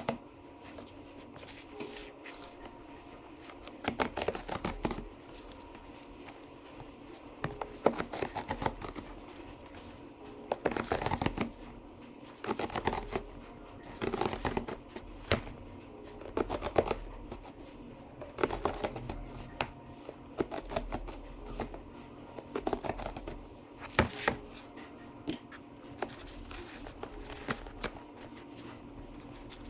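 Motorcycle seat foam being cut with a razor blade and torn out in pieces: short scraping, tearing strokes every second or two, irregular in length.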